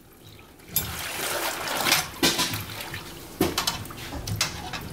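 Water sloshing and splashing in a stainless steel pot as bunches of callaloo are plunged up and down in it by hand, starting about three-quarters of a second in, with a few sharper splashes.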